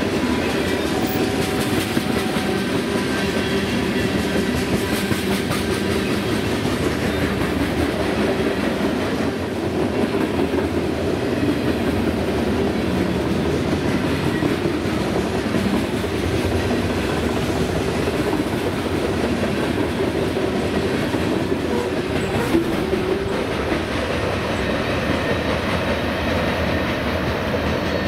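Freight train cars rolling past, steel wheels clattering steadily over the rails.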